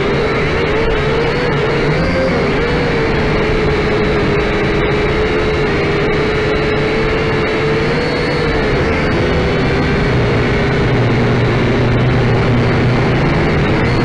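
Syma X5C quadcopter's small electric motors and propellers running, heard close up from its onboard camera: a steady whine whose pitch wavers up and down as the throttle changes, with a lower hum growing stronger in the second half.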